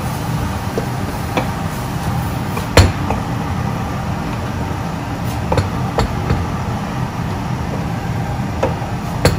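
Wooden spatula stirring diced vegetables in a stainless steel stockpot, knocking against the pot now and then, the loudest knock about three seconds in, over a steady low hum.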